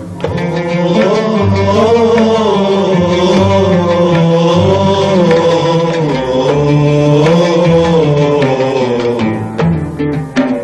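Instrumental interlude of an Arabic song: a melody that bends and wavers up and down, over low bass notes and steady hand-drum beats.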